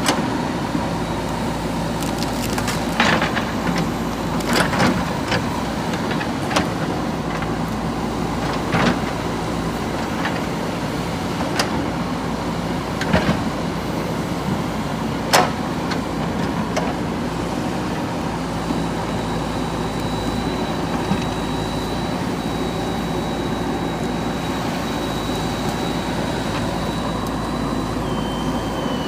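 JCB 3DX backhoe loader's diesel engine running steadily while the machine works, with irregular sharp knocks and cracks over it. A thin high whine holds for several seconds in the second half and drops in pitch near the end.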